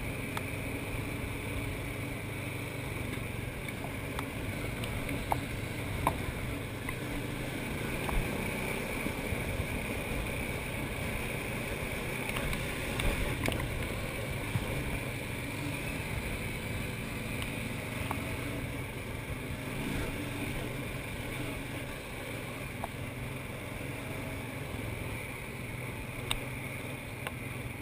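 Honda Foreman 500 ATV's single-cylinder four-stroke engine running steadily under way, with a few sharp knocks along the way.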